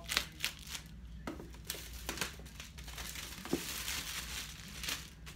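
Clear plastic shrink-wrap being torn and peeled off a MacBook Air box, crinkling and crackling in a run of short sharp crinkles with a denser stretch of crinkling in the middle.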